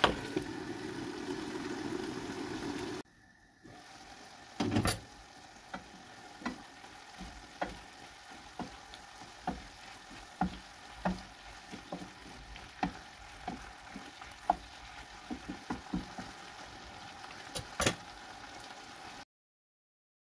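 Broccoli and pork stir-fry sizzling in a pan, with a clank as the lid goes on at the start. After about three seconds it turns to stirring, a wooden spatula knocking and scraping against the pan roughly once a second over the quieter sizzle.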